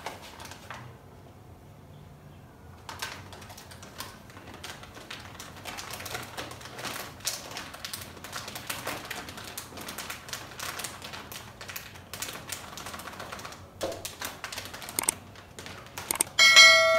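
Plastic detergent packet crinkling and rustling as powdered detergent is shaken out into a bowl of water, a dense run of small crackles. Near the end, a loud ringing notification chime from a subscribe-button sound effect.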